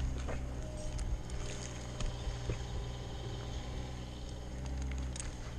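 A low, steady engine hum, with scattered clicks and scrapes of rope and metal climbing hardware against the tree trunk.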